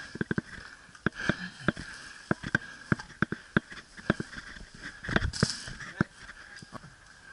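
Airsoft guns firing irregular single shots, sharp snapping cracks several times a second in places. A louder dull thump with a rush of noise comes about five seconds in.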